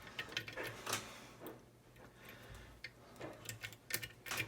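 Light, irregular metal clicks and ticks of lock-picking tools working in the keyway of an ERA rim cylinder lock, a few scattered taps.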